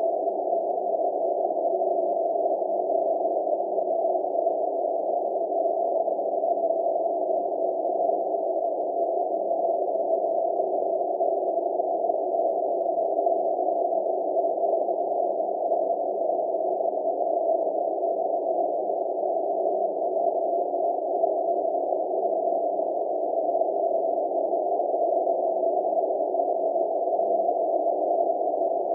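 A steady, unchanging drone of several low tones over a muffled hiss, with no breaks or changes.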